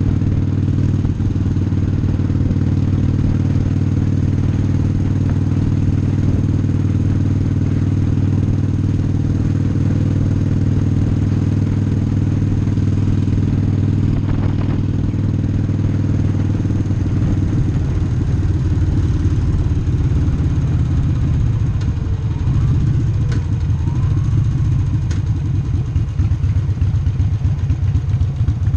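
Harley-Davidson Sportster's air-cooled V-twin engine running steadily at cruising speed. About two-thirds of the way through it drops to a slower, uneven pulsing beat as the bike slows down.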